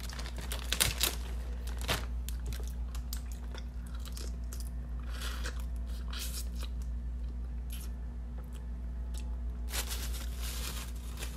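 Snow crab claw shell being cracked and broken apart by hand, in clusters of sharp crunches and snaps, with chewing between them.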